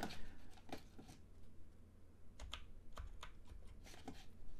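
Scattered clicks of a computer keyboard and mouse being worked, a few taps a second at uneven spacing, over a faint steady low hum.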